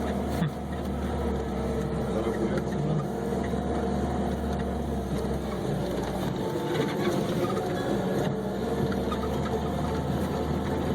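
Lada Niva 4x4 driving along a dirt forest track: steady engine and road noise, with a couple of short knocks from the body and suspension, about half a second and eight seconds in.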